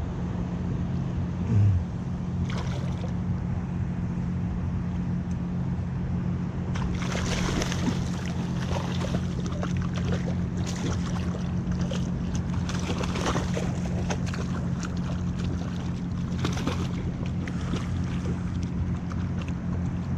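Water lapping and splashing against a kayak hull, over a steady low hum. From about seven seconds in come many small splashes and knocks.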